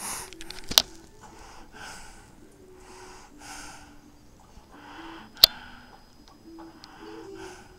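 Small dog breathing noisily with its nose in a food bowl, one breath about every second. Two sharp clicks, under a second in and again about five and a half seconds in, are the loudest sounds.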